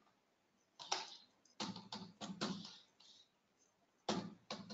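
Faint computer keyboard keystrokes in a few short scattered clusters, as lines of code are edited.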